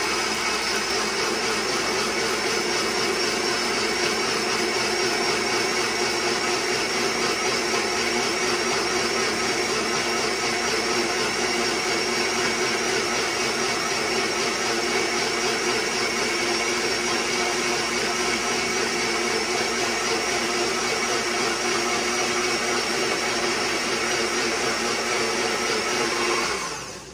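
Electric blender running steadily, grinding roasted chiles de árbol, garlic and onion in a little water into salsa, then switching off near the end.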